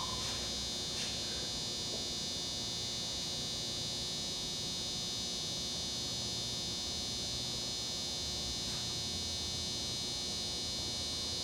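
Steady high-pitched electrical buzz, with one or two faint clicks.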